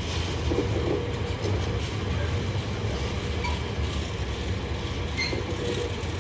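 Container freight train rolling past, with a steady rumble of wagon wheels on the rails and brief faint wheel squeals, one near the end.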